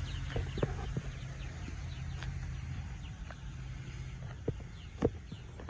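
Birds chirping in short falling notes, with scattered footsteps on asphalt and a low steady hum that fades about four seconds in.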